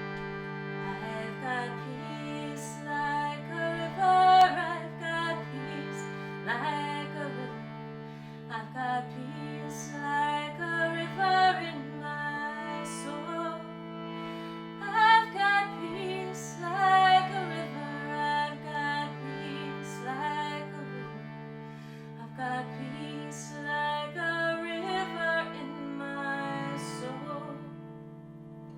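Hand-pumped harmonium holding sustained drone chords that shift every few seconds, with a woman humming a slow, wordless melody over them.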